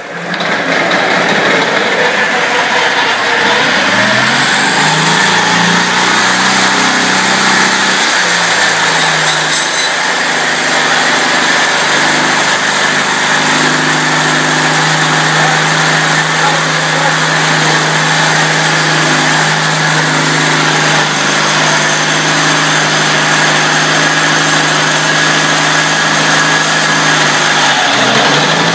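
Small pull-started gasoline engine, the starting motor for a foghorn compressor's diesel engine, catching at once on the rope pull and running very loud. Its pitch climbs over the first several seconds as it revs up, then holds steady, with a brief dip near the end.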